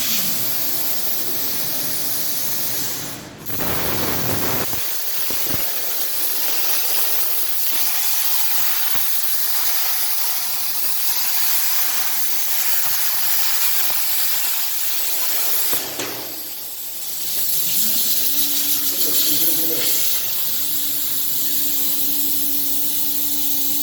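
Plasma torch of a SteelTailor Dragon III CNC cutting machine hissing steadily as it cuts, breaking off briefly about 3 seconds in and again about 16 seconds in. A steady hum joins in from about 18 seconds.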